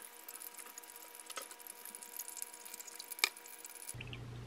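Thin stream of hot water poured from a kettle into a ceramic pour-over coffee dripper, trickling and dripping through the grounds into a glass server, with one sharp click about three seconds in. Near the end the sound changes abruptly to brewed coffee being poured from the server into a glass mug over a low steady hum.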